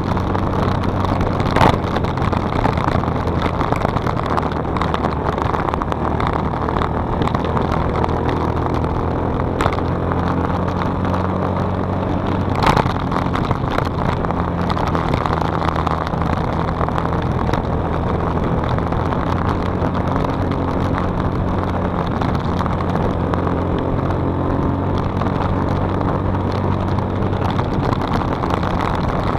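Small-displacement manual-gear motorcycle engine running steadily under way, its hum shifting slightly in pitch, over a constant rush of wind and road noise.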